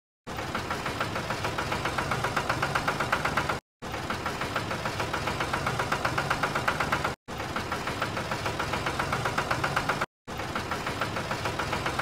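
Engine running with a rapid, even knocking pulse, heard in pieces of about three and a half seconds broken by brief dead-silent gaps.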